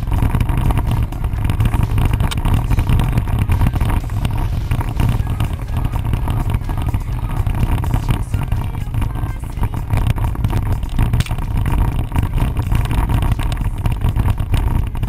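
Jeep Wrangler driving slowly along a rough dirt trail: steady engine running under a continuous low rumble and rough jostling of the vehicle over the ground, picked up by a camera mounted on the outside of the vehicle.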